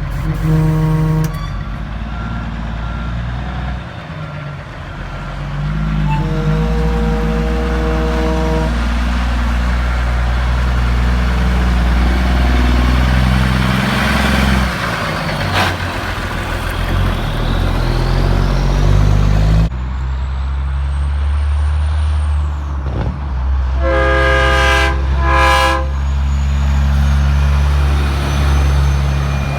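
Heavy trucks passing with diesel engines and road noise, sounding chorded train-style air horns: one blast ends just after the start, a long blast comes about 6 seconds in, and two short blasts come near the end.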